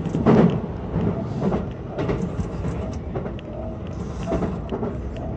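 Sotetsu 20000 series electric train running at speed: a steady rumble with wheel clicks over the rails, and a louder thump about a third of a second in.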